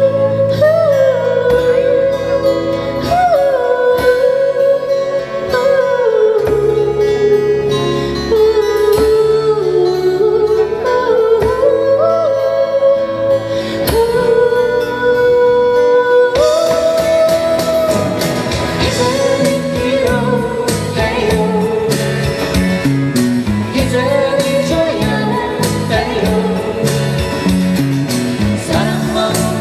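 Live amplified band music: a singer with acoustic guitars, an electric guitar and a djembe.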